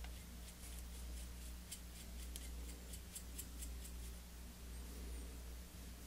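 Bristles of a small paintbrush stroking weathering powder onto the plastic shell of an HO-scale model locomotive. A quick run of faint, light scratches in the first half stops a little past halfway, over a steady low hum.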